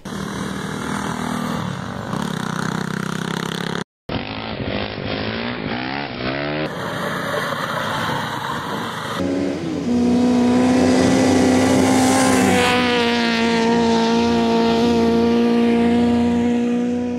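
Small off-road buggy engine running and revving, in several pieces cut together with a brief dropout about four seconds in. From about ten seconds on it is louder and holds a steady pitch.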